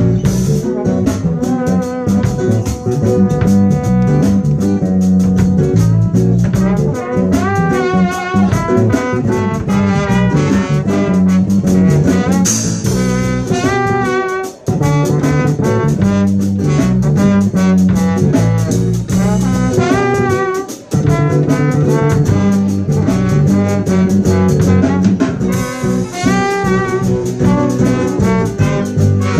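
Live band playing an instrumental passage: bass and drum kit under a melodic lead line with a wavering pitch, in a jazzy style.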